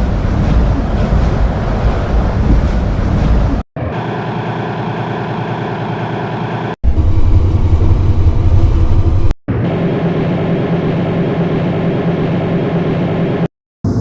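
Train noise in several short clips spliced together, each cut off abruptly. A rumbling run comes first, then steady engine drones with a held hum.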